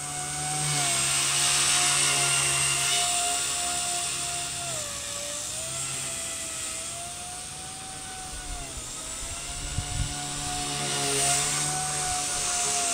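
Blade 130X micro RC helicopter in flight: a steady high-pitched whine from its motors and spinning rotors. The pitch dips briefly a few seconds in and again midway, as the throttle changes. The sound swells louder as the helicopter passes close.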